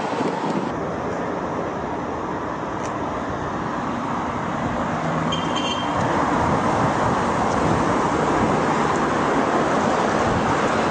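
Steady road traffic noise from passing cars, growing louder about six seconds in, with a brief high tone a little after the middle.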